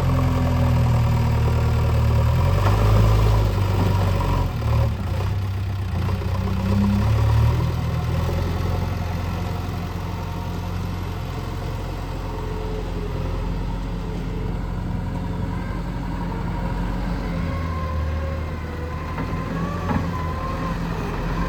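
Diesel engine of a JCB 3DX backhoe loader running as it works soil. It runs harder and louder for the first seven seconds or so, then settles to a steadier, lower running.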